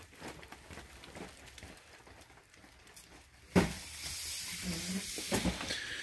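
Quiet rustling and handling noise, with two sharp knocks about three and a half and five and a half seconds in, and a hiss between them.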